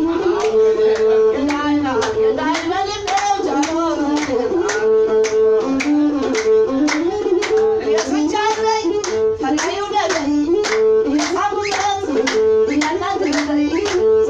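Ethiopian azmari music: a masinko (single-string bowed fiddle) and singing, over steady, rhythmic hand-clapping.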